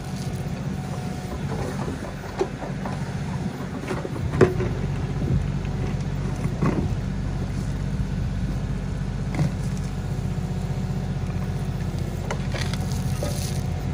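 Kioti DK4510 tractor's diesel engine running steadily, with a few sharp knocks and clunks, about four and a half, seven and nine and a half seconds in, and more clatter near the end.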